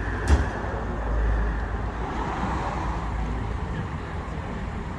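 Outdoor street ambience with a steady low vehicle rumble and traffic noise, strongest for about a second near the start. A single sharp knock comes just before it.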